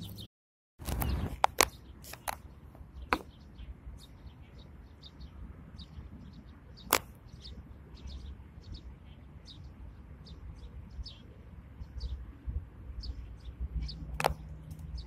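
Outdoor ambience with a low steady rumble, scattered sharp clicks, and many faint, very short high chirps from small birds. The sound drops out completely for about half a second near the start.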